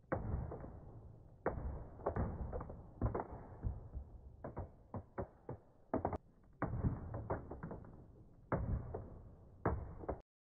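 A heavy steel ball dropped onto a Vesper Cortex marine VHF/AIS handset and the wooden bench under it, as an impact test of the handset. It lands in a string of heavy thuds, with a run of quicker, lighter knocks from bouncing near the middle. The sound cuts off suddenly near the end.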